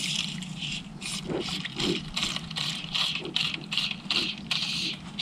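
Fly line being stripped in by hand through the rod guides in short quick pulls, a rhythmic hissing rasp two to three times a second: a fast retrieve of the fly.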